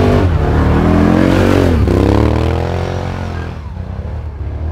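ATV engine revving hard as the quad ploughs through deep snow. The pitch climbs, drops sharply about two seconds in, climbs again, then fades as the machine pulls away.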